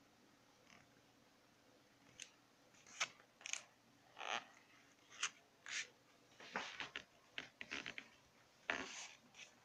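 Faint, irregular handling noise: short clicks and brief scraping rustles, starting about two seconds in and coming thicker toward the end.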